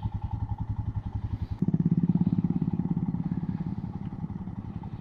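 Single-cylinder motorcycle engine running at low revs, its separate firing beats clearly heard. About one and a half seconds in the throttle opens and it gets louder.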